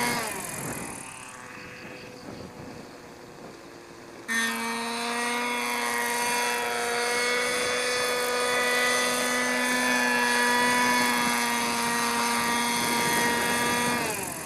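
Radio-controlled helicopter's motor and rotor whine. The pitch falls and the sound drops away at the start, as in a power cut for an autorotation. The whine comes back suddenly at full pitch about four seconds in, holds steady, and falls away again near the end.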